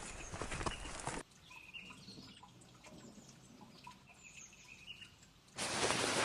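Footsteps that stop about a second in. After them comes faint outdoor ambience with scattered bird chirps, and near the end a short, loud rush of hiss.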